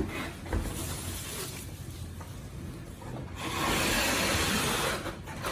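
Rubbing and rustling of packaging as the vacuum cleaner's stand is unpacked by hand. A louder, even rub starts about three and a half seconds in and lasts about a second and a half.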